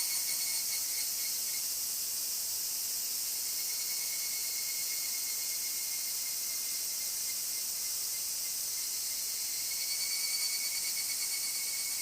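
Cicadas calling: a dense, steady shrill buzz with a pulsing tone, swelling slightly near the end.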